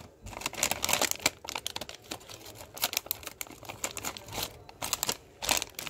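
Small scissors snipping through a foil-lined plastic snack packet, the packet crinkling and crackling in the hands as it is cut, in a quick irregular run of snaps.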